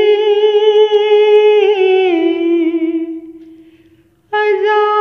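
A solo voice singing a devotional bhajan, holding one long unaccompanied note that dips slightly in pitch and fades out about four seconds in. A new sung phrase starts just before the end.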